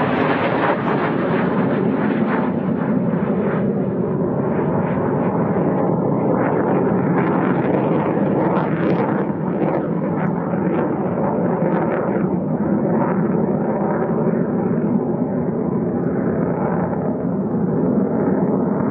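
Loud, steady jet noise from a Eurofighter Typhoon's twin Eurojet EJ200 turbofans, a dense rumble with a crackling edge, its higher part fading a little as the jet climbs away.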